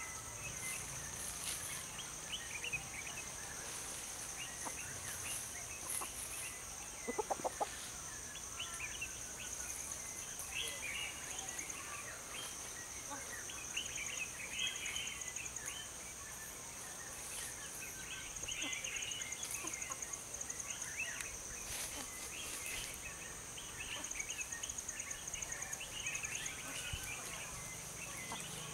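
Tropical forest ambience: a steady, high-pitched insect drone with a pulsing edge, and scattered bird chirps throughout. A short run of lower calls comes about seven seconds in.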